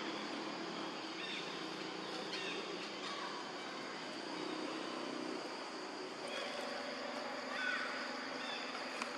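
Outdoor ambience: a steady high-pitched drone over a low steady hum, with short chirping calls scattered through.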